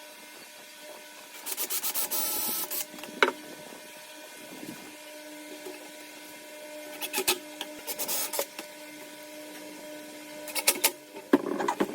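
Handheld power drill running in three short bursts: about a second and a half in, again around seven to eight seconds, and briefly near the end.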